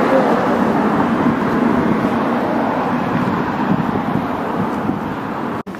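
Steady road-traffic noise: an even rushing sound with no distinct engine note, which breaks off abruptly near the end.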